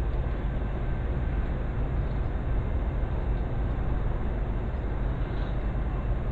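A vehicle engine idling steadily: a constant low rumble that does not change.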